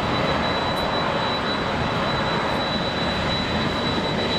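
Jet airliner engines running, a steady noise with a thin, steady high whine.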